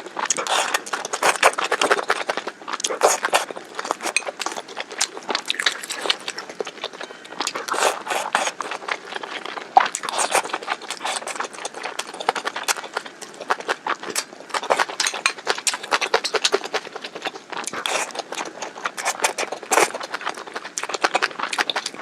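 Close-miked eating: chewing and crunching of spicy dry-pot food, heard as dense, irregular crackling clicks.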